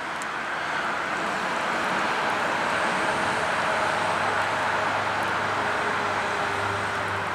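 Steady rumble and hiss of an approaching GO Transit double-deck commuter train on the rails, with a low hum, likely from its MP40 diesel locomotive, coming in about halfway through.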